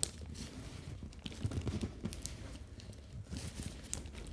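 Fingertips and nails tapping and scratching on the top of a cardboard box: a string of irregular light taps, one sharper click at the very start.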